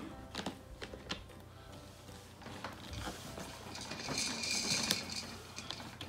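Light clicks and knocks of hard plastic toy parts being handled and fitted onto a plastic Minnie Mouse figure, with a brief scraping hiss about four seconds in.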